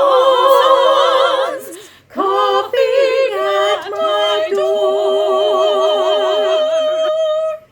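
Three women's voices singing a cappella in close harmony, holding sustained notes with vibrato. A short break comes about two seconds in, then a final chord is held and cut off sharply near the end.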